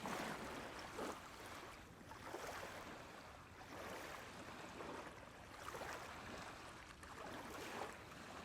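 Faint, even rushing noise like gently moving water, rising and falling softly every second or two.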